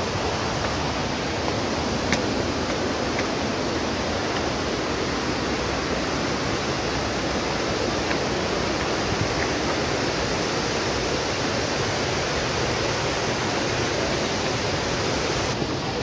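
Steady, even rushing of the Mlamala (Silver) waterfall close by, with a faint click or two about two and three seconds in.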